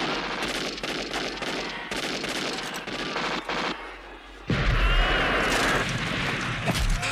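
Battle-scene gunfire from a war film: a dense, rapid crackle of rifle and machine-gun fire, then a sudden heavier, louder low boom about four and a half seconds in.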